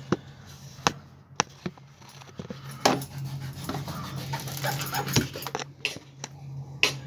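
Knife knocking on a cutting board as brinjals (eggplants) are sliced: irregular sharp taps a second or so apart, over a steady low hum.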